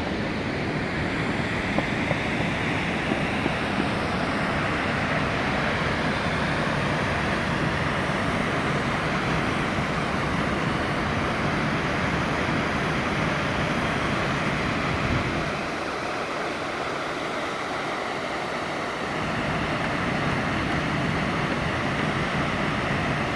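The Muradiye waterfall, an 18-metre fall of water, rushing in a steady dense roar. Low wind rumble on the microphone drops away for a few seconds about two-thirds of the way through.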